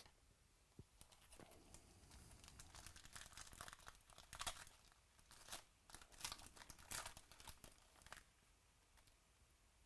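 Faint crinkling and rustling of plastic card packaging as trading cards are handled, in quick bunches of crackles from about a second in until near the end.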